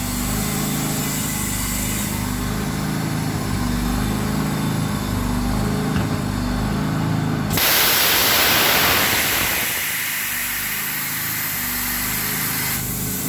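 Compressed air hissing loudly into a tire for about two seconds, starting suddenly a little past halfway and tapering off, as the newly mounted tire is aired up on its rim. Under it a motor runs steadily.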